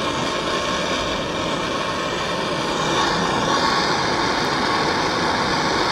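Handheld gas torch burning with a steady hiss, its flame held on the metal sleeve of a subframe cradle mount to heat it and melt out the old bushing material.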